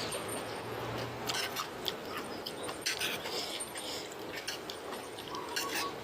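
A person chewing food close to the microphone: irregular wet clicks and crunches from the mouth.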